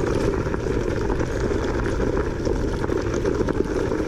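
Langfeite L8S electric scooter running at full throttle over loose small rocks, its tyres crunching and slipping on the ground in a steady, dense rumble.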